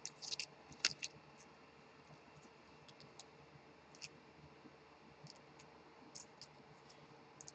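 Light clicks and taps of a hard plastic trading-card holder being handled and set on a stand, a quick cluster in the first second with the sharpest click just under a second in, then only a few faint scattered clicks.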